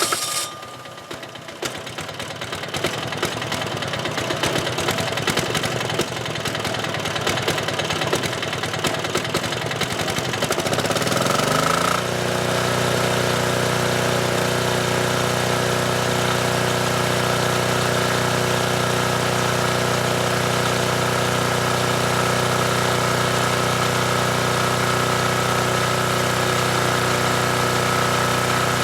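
ETQ DG7250LE generator's single-cylinder diesel engine running roughly with a knocking clatter just after starting. About eleven seconds in it climbs in pitch up to governed speed, then runs steadily.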